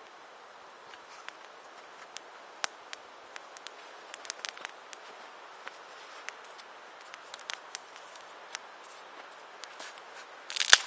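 Wood campfire crackling: irregular sharp pops and snaps over a soft steady hiss, with a louder burst of crackling near the end.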